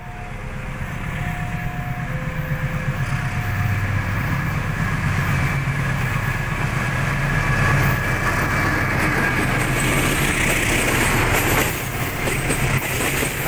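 Diesel locomotive hauling a passenger train, its low engine rumble growing steadily louder as it comes near, then the rolling rumble and hiss of the coaches' wheels as they pass close by.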